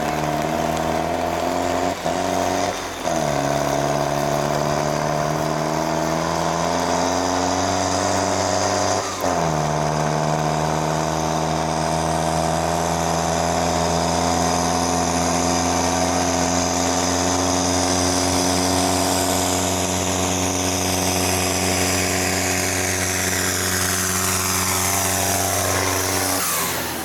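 Valmet farm tractor's diesel engine running hard under heavy load as it pulls a weighted trailer in a tractor pull. Its note drops sharply twice, a few seconds in and about nine seconds in, and climbs slowly in between. Near the end it passes close by, its pitch falls and the sound fades.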